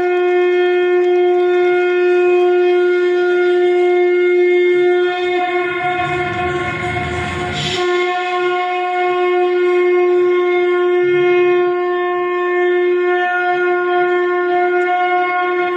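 Conch shell (shankha) blown in one long, unbroken, steady note. A low rumble joins it about five seconds in and stops with a short click about halfway through.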